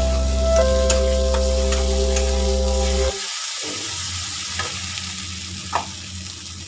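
Masala frying and sizzling in a kadai while a metal spatula stirs it, with a few sharp scrapes and taps on the pan; the masala is being sautéed until it is cooked down. Background music of held notes plays over the first three seconds and cuts off suddenly.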